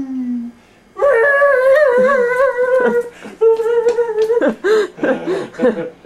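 A high voice singing or humming two long held notes with a wavering pitch, the second a little lower, then several short vocal sounds near the end.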